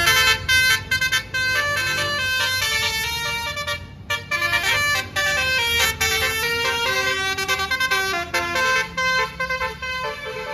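Tour bus's basuri 'telolet' air horn playing a fast melody of short stepped notes, starting abruptly and running on with brief gaps and a dip about four seconds in.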